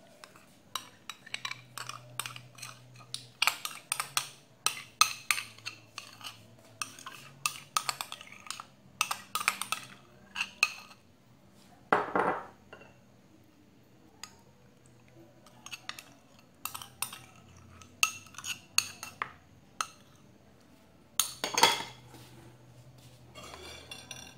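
A spoon clicking and scraping against a bowl as thick condensed milk is scraped out into a bowl of milk. The taps come quickly for the first half, then more sparsely, with two louder clatters about halfway and near the end.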